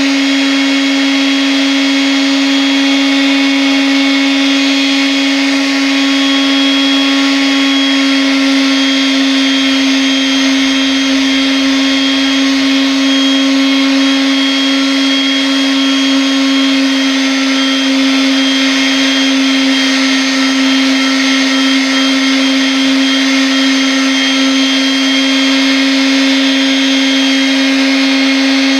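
Electric power sander running steadily: a constant motor whine over the hiss of sandpaper on the surface.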